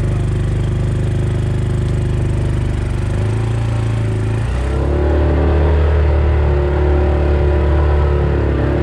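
Yamaha Rhino side-by-side engine running under way, then revving up and getting louder about halfway through as it pulls through mud.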